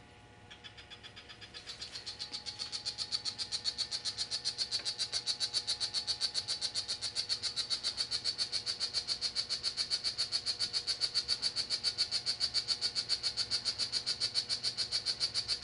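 Poison dart frog calling: a long, even run of rapid, high chirps, several a second. It starts about half a second in and grows louder over the first few seconds.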